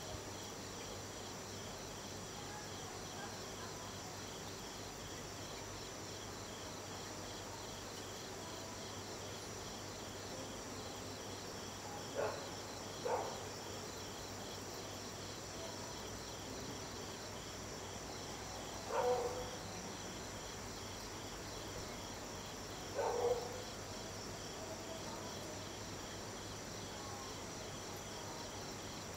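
Night insect chorus: crickets chirring steadily at several high pitches, with a fine rapid pulse. Four short, louder sounds of unclear source stand out, two close together about halfway through and two more later on.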